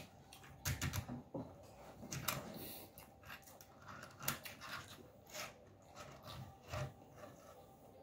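Eating noodles: chewing and small mouth sounds, with wooden chopsticks clicking against a ceramic bowl, a scatter of short clicks with a few louder ones.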